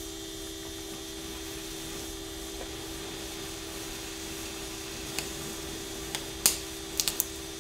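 Oxy-acetylene welding torch flame hissing steadily while melting a puddle in 16-gauge steel sheet, with a steady low hum under it. A few sharp clicks and pops come in the last couple of seconds.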